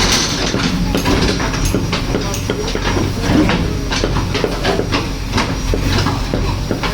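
Diesel engine of a JCB 3DX backhoe loader running under load, with repeated metallic knocks and clatter from the working machine.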